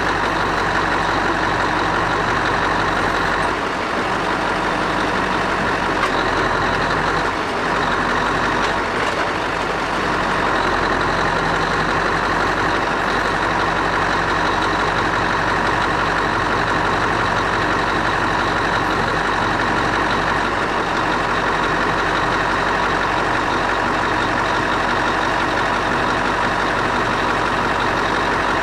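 Scania R500's V8 diesel engine running steadily, driving the hydraulics of the truck-mounted loader crane as it lifts a load.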